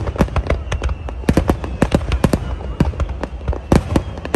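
Fireworks display: aerial shells bursting in rapid succession, about six sharp bangs a second, some overlapping, over a steady low rumble.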